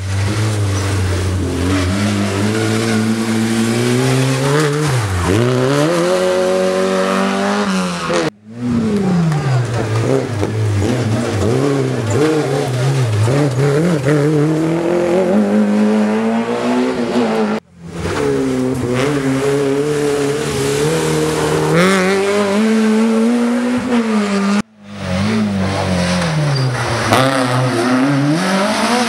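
Rally cars' four-cylinder engines braking hard into a tight chicane and revving up again as they accelerate out. In each of four short takes, split by abrupt cuts, the engine note drops steeply and then climbs.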